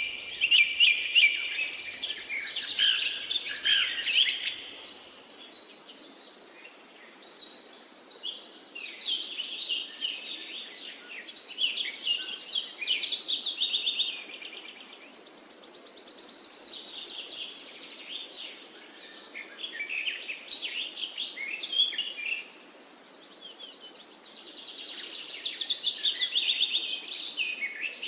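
Songbirds singing: high chirps and rapid trills in bouts of a few seconds, separated by quieter gaps, over a faint steady background hiss.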